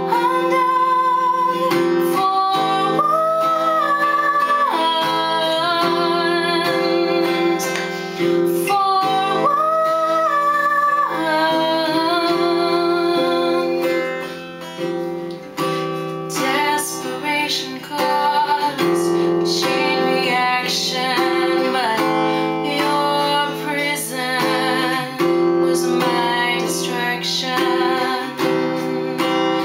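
A woman singing to her own strummed acoustic guitar. In the first half she holds long, wavering notes. In the second half the strumming comes more to the fore, after a short dip in loudness about halfway through.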